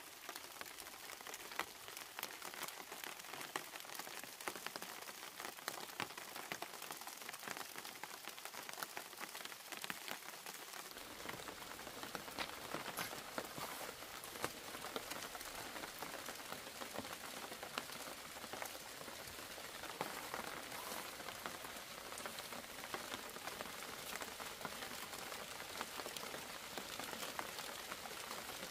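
Steady rain falling, a dense hiss made up of many separate drop ticks; it grows fuller in the low end about a third of the way in.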